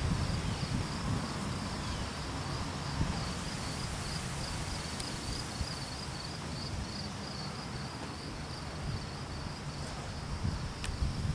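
Insects chirping in a steady, pulsing high trill, over low gusts of wind rumbling on the microphone.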